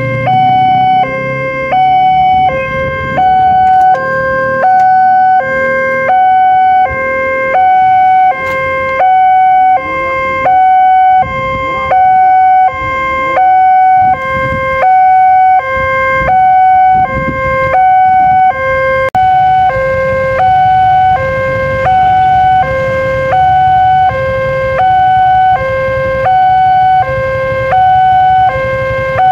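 Indonesian railroad level-crossing warning siren sounding a shrill, tinny two-tone alarm, switching steadily between a high and a low note about every half second. Throughout, it warns that a train is approaching and the crossing gates are closing. A low rumble runs underneath.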